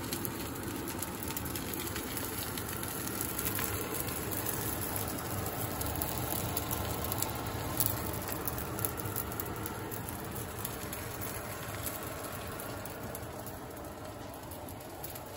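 A paratha frying in a non-stick pan: steady sizzling with small crackles, fading over the last few seconds.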